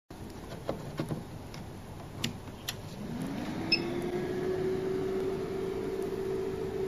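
Benchtop spectrophotometer being switched on: a few clicks from its power switch, then its internal fan spins up with a rising hum and settles into a steady hum, with a short electronic beep partway through as it starts up.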